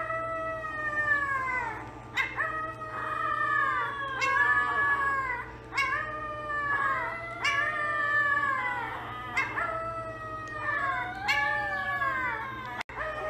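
Dog howling in a run of about ten high, drawn-out cries, each rising and then falling in pitch.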